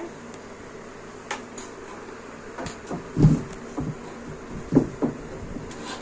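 Scattered taps and clicks of a key and small hands against a door and its lock, with a heavier knock about three seconds in and another near five seconds, as a toddler fumbles to get the key into the lock.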